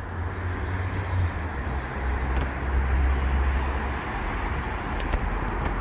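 Steady outdoor background noise with a low rumble, like road traffic, and a few faint ticks near the end.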